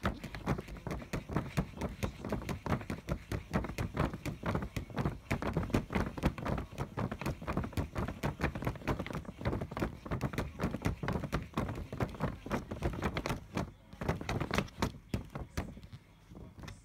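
A Norwegian Forest Cat kitten batting at clear plastic wrap stretched over a hole in a cardboard box. The sound is a fast, irregular run of soft taps and thuds from its paws against the film, with a couple of short pauses.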